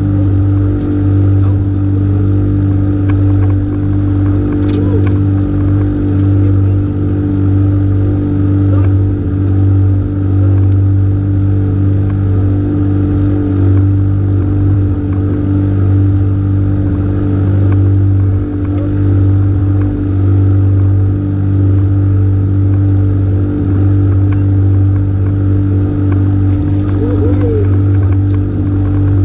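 A small engine running at a steady speed, a constant loud droning hum that does not change.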